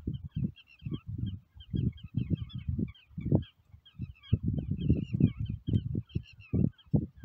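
Small birds chirping continuously over irregular low rumbling bursts, several a second.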